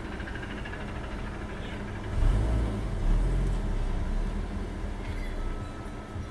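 Subaru BRZ's flat-four boxer engine running as the car is driven forward. The low rumble swells about two seconds in as it pulls ahead, then eases off toward the end.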